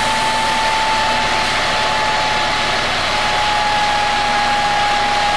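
Rear-mounted diesel engine of a double-decker bus idling: a steady hiss with a high, even whine that sinks very slightly in pitch about halfway through.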